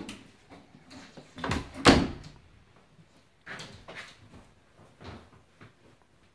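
A dog moving about on a bed, scuffling and rustling the bedding, with a loud thump about two seconds in and softer rustles after it.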